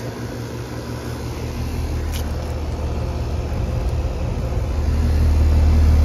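Outdoor heat pump condensing units running in cool mode: a steady low compressor and fan hum that grows louder toward the end as the microphone nears a unit's grille.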